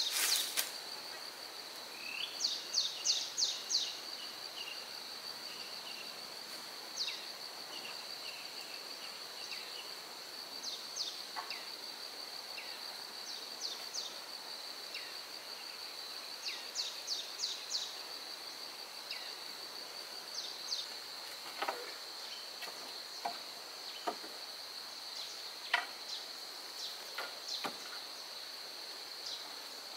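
Outdoor insect chorus: a steady high-pitched drone, with brief chirps in small clusters now and then and a few faint knocks in the second half.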